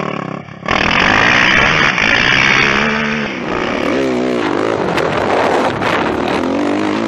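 Sport quad (ATV) engines running and revving over sand, the pitch rising and falling, with a brief drop in sound about half a second in.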